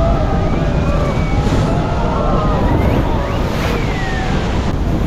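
Heavy wind buffeting the microphone and rushing water on a speedboat ride into Iguazú Falls, with high wavering yells from the passengers over the top.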